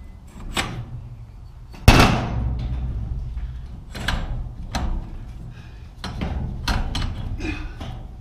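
Metal clanking and knocking as a garage door cable drum and torsion spring are worked along the steel torsion shaft. There is one loud clank about two seconds in, then several lighter knocks.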